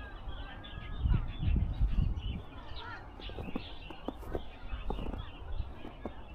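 Birds chirping and calling in short, quick notes, some sliding in pitch. A low rumble, louder than the birdsong, comes about a second in and lasts about a second and a half.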